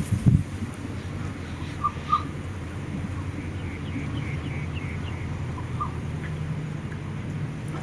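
Birds chirping: a pair of short calls, then a quick run of higher notes, then another single call, over a steady low rumble. A thump just after the start is the loudest sound.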